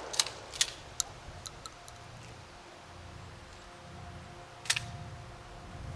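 The echo of a shotgun shot dying away, followed by a string of light, sharp clicks and knocks over the next two seconds and one louder click near the end.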